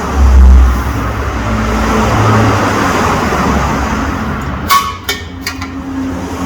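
Steady rushing and rumbling workshop noise, broken by a few sharp clicks about five seconds in.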